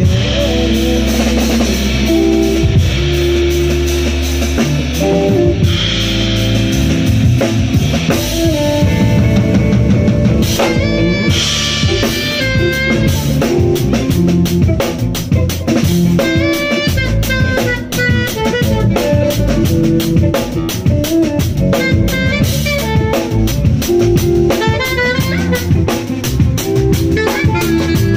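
Live jazz band playing: drum kit with cymbals and an electric bass, with a fast melodic solo line running over them from about eight seconds in.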